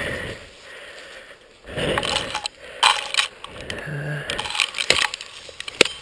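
Dry brush, grass and twigs rustling and crackling as someone pushes through dense undergrowth on foot, with irregular sharp snaps of sticks breaking.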